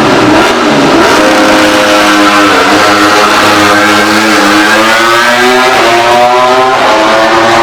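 MotoGP racing motorcycle engine at high revs, its pitch wavering, then climbing steadily before a sudden break near the end.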